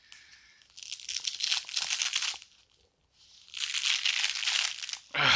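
Hook-and-loop (Velcro) fastening on a nylon plate carrier being pulled apart twice. Two tearing rips, each about a second and a half long: the first about a second in, the second near the end.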